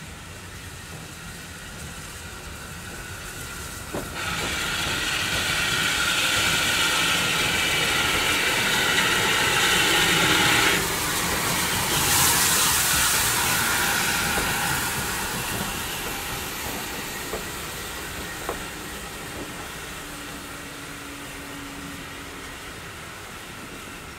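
Steam locomotive pulling away with a train of coaches, loud steam hissing from about four seconds in until it cuts off suddenly near eleven seconds, then a second shorter hiss. The coaches then roll past and fade, with a few sharp clicks from the wheels.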